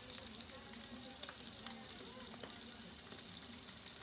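Oil sizzling and crackling steadily as almond-flour-coated shrimp deep-fry in a stainless steel sauté pan, with a few light clicks of metal tongs against the pan.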